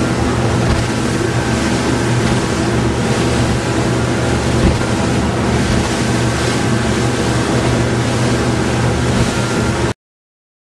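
Motorboat running at speed: a steady engine drone under the rush of the wake and wind buffeting the microphone. It cuts off suddenly near the end.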